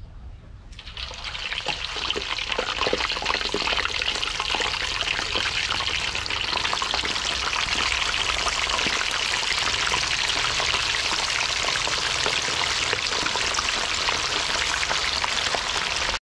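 Pork belly slices deep-frying in hot oil in a large metal wok: a loud, dense crackling sizzle that jumps up about a second in as the meat goes into the oil, then holds steady.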